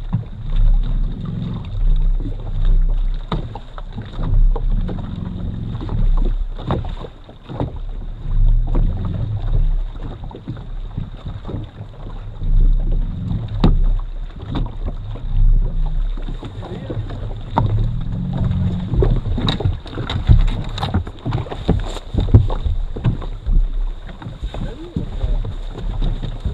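Lake chop slapping and knocking against a fibreglass bass boat's hull, with gusts of wind rumbling on the microphone that come and go every second or two.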